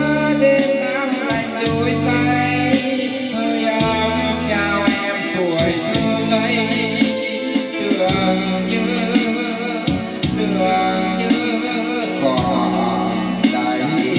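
A song with a singer over guitar, bass and a steady beat, played back over loudspeakers.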